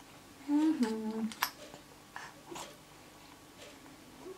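A short hummed 'mm' voice sound about half a second in, falling in pitch, then a sharp click of the feeding spoon and scattered small clicks and mouth sounds of a baby being spoon-fed.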